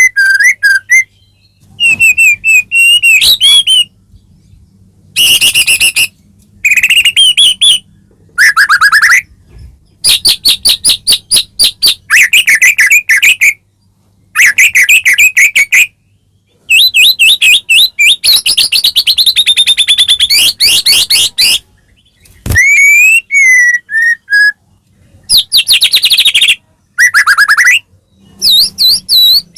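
White-rumped shama (murai batu) singing loudly in a string of separate phrases of clear whistles and fast trills, with short pauses between them.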